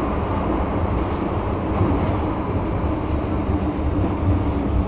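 Inside a moving MTR M-Train metro car running through a tunnel: a steady rumble of wheels and running gear, with a brief faint high squeal about a second in.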